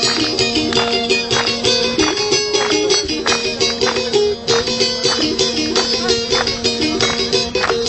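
Music: a plucked string instrument playing a fast, even melody over a steady drone note.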